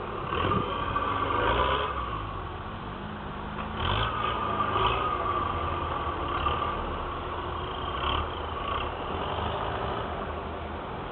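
Off-road vehicle engine running, its pitch rising and falling as it revs.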